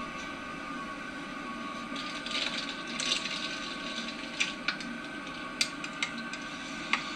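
Handling noise: a couple of seconds of rustling, then five or six sharp clicks, over a steady electrical hum.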